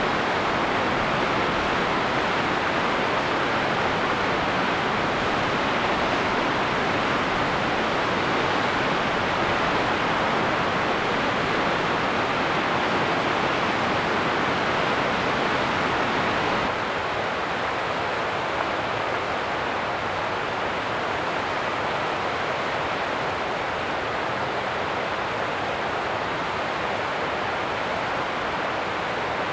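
Mountain river rushing over rocks: a steady, even rush of water. About halfway through it drops a little in level and turns slightly duller.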